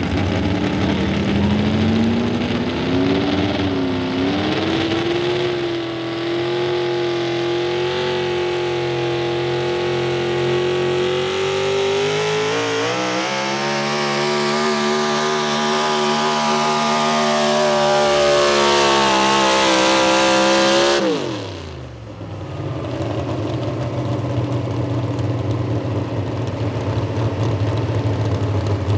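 A pro stock 4x4 pickup's big-block engine with a single four-barrel carburetor runs at full throttle, pulling a weighted sled. Its pitch climbs and holds high for about twenty seconds. Just after 21 s the throttle is let off and the revs fall away sharply, leaving a lower, steady engine rumble.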